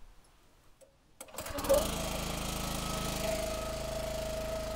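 Log splitter engine starting about a second and a half in and then running steadily.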